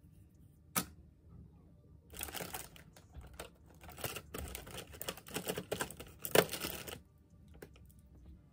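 Makeup brushes and products being handled and rummaged through: a sharp click about a second in, then several seconds of clicking, clattering and rustling, with the loudest knock near the end.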